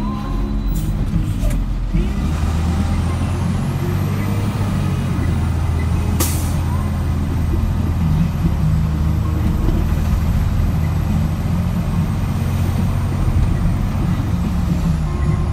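Tow truck engine running steadily as the truck drives slowly, heard from inside the cab; the engine drone strengthens about two seconds in. A single brief sharp click or knock cuts through about six seconds in.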